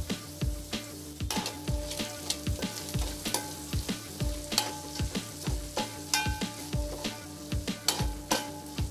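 Food sizzling in a pan while it is stirred, with sharp clicks of the spoon against the pan, over background music with a steady beat.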